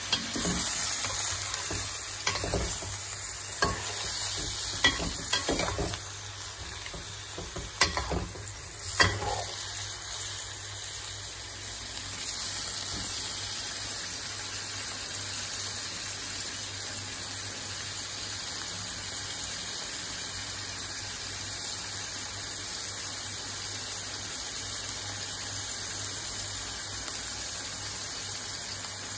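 Meat pieces with onion and ginger sizzling in oil in a wok, with a spatula scraping and knocking against the wok during the first nine seconds or so; after that the steady sizzle goes on alone.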